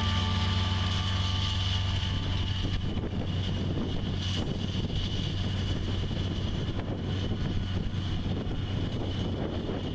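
Large John Deere tractor's diesel engine running steadily under load as it pulls a tillage implement through the soil. Its drone fades after about two and a half seconds as the tractor moves away, leaving a low rumble with wind buffeting the microphone.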